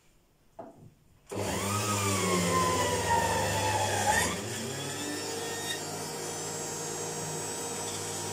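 Electric centrifugal juicer motor starting abruptly about a second in and running hard while fruit is pressed down its chute with the pusher, with a whine that slowly falls in pitch. After about three seconds it settles to a quieter, steady run. A small knock comes just before it starts.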